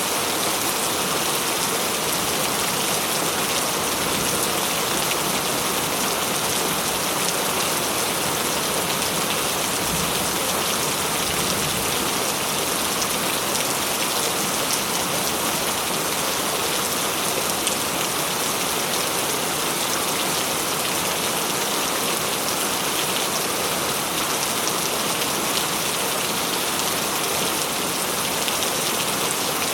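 Heavy rain falling steadily and loudly, a dense even patter of drops on a surface with no break or change.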